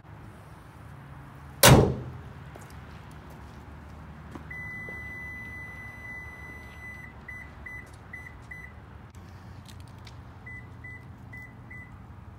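A car hood slammed shut, one sharp bang about two seconds in, over the 2013 Toyota 4Runner's 4.0-litre V6 idling. From about four and a half seconds the vehicle's warning chime sounds, first as a held high tone and then as short beeps about two a second. A second run of beeps comes near the end.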